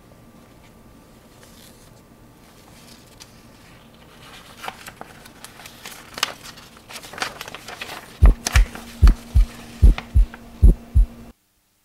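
Heartbeat sound effect: four double thumps, lub-dub, at a steady pace over a low hum, starting about eight seconds in and cutting off suddenly near the end. Before it come scattered light clicks and rustles of books being handled on a shelf.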